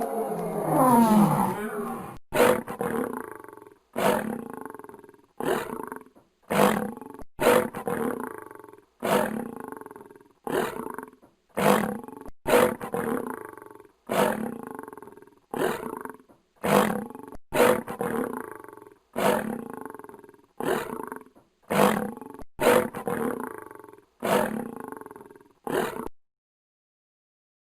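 Lion roaring bout: a long roar, then a long run of short grunting roars, each starting sharply and fading, less than a second apart.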